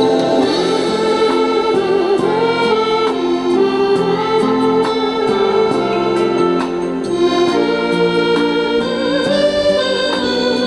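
Instrumental keyboard music with no singing: a melody with vibrato over sustained chords, the interlude between sung verses of a Korean ballad.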